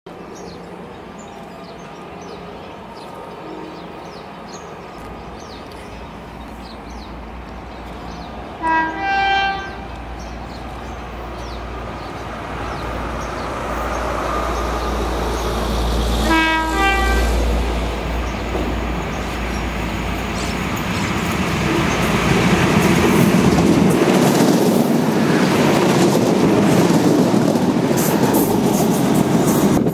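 Trains approaching on the line: a red suburban railcar draws near and passes with a rising rumble. A train horn sounds twice, each time a short two-part blast, about nine and sixteen seconds in. The special's lead diesel locomotive then closes in, its engine and wheel rumble growing loud in the last several seconds.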